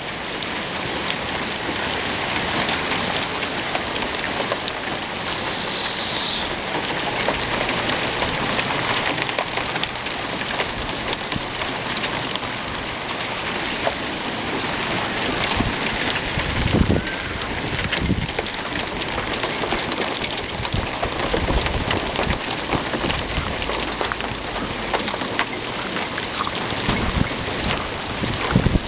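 Soft, snow-like hail pattering steadily on the ground and nearby surfaces: a dense crackle of many small ticks.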